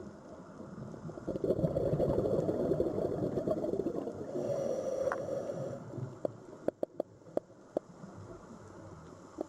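Sea water washing and sloshing, swelling about a second in and easing off around six seconds, followed by a run of sharp clicks.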